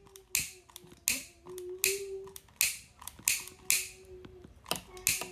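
Piezo igniter of a long-neck utility lighter clicked about eight times in a row, trying to light a candle wick without the flame catching: the lighter is likely out of gas.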